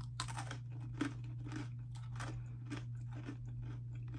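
A person crunchily chewing a mouthful of Cheetos Pretzels, a regular run of crisp crunches about three a second, over a steady low hum.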